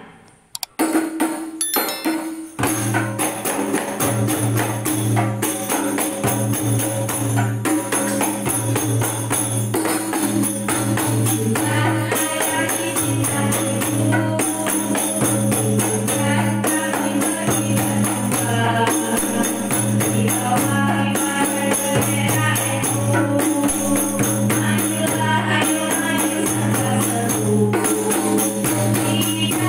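Rebana frame drums beating and women singing an Islamic religious song into microphones, over a steady low sustained accompaniment. A few separate drum hits come first, the full music starts about two and a half seconds in, and the voices enter about twelve seconds in.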